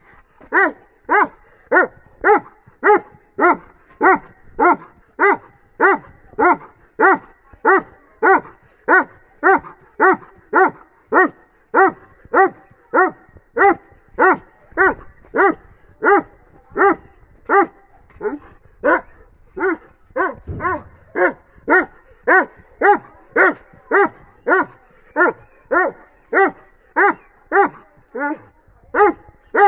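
Bully x Dogo Argentino cross dog barking over and over at a steady pace, a little under two barks a second, without a break.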